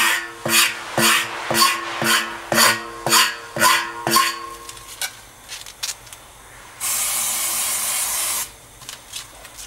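A hand scraper pulled hard across the rubber inner liner of a truck tire, about nine quick scraping strokes, roughly two a second, cleaning the patch where a pressure sensor will be glued. Then a few lighter ticks, and a steady hiss for about a second and a half near the end, over background music.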